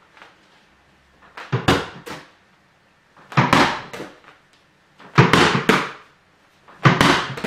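A 6-inch foam ball with an Arduino board, accelerometer and battery packed inside, thrown hard four times, about every second and a half to two seconds; each throw and hit is a short cluster of loud knocks that dies away quickly.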